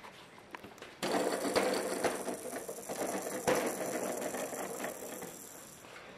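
Plastic moving parts of a Bright Starts Around We Go activity station whirring and clicking. The sound starts suddenly about a second in and slowly dies away.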